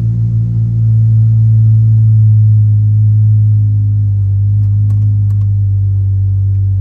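Deep, sustained bass notes played loudly through the car's speakers from the newly installed 8.4 Uconnect head unit, the pitch shifting about four seconds in, with a few faint clicks around five seconds.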